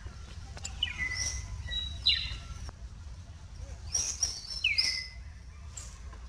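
High chirping calls, each sweeping down in pitch and some ending in a briefly held note: one about a second in, another at two seconds, then a quick run of several between four and five seconds. A steady low rumble lies underneath.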